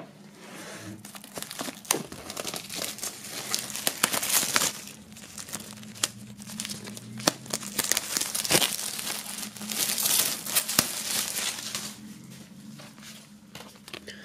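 Plastic shrink-wrap foil crinkling and tearing as it is pulled off a vinyl LP sleeve, in irregular rustling bursts with sharp crackles, quieter near the end.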